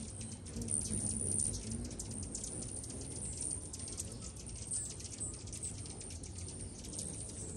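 Many hummingbirds chipping and chittering around feeders: a dense, continuous stream of high, rapid ticking notes over a low hum.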